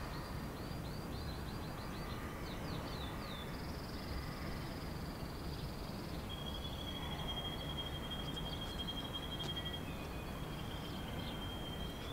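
Outdoor ambience: a steady bed of background noise with birds singing. A run of quick descending chirps comes in the first few seconds, then a long, steady, high trill runs through the second half.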